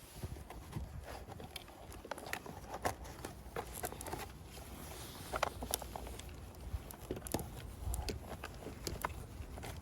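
Irregular light clicks and taps, scattered a few to the second over a low background rumble.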